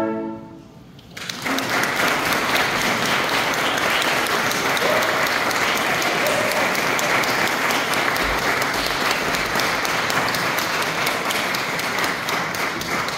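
A flute ensemble's last chord dies away, and after about a second of quiet the audience breaks into steady applause.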